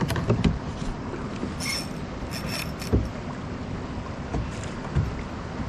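Water sloshing against a fishing kayak's hull, with a few dull knocks on the boat, and two brief high-pitched zips about two seconds in.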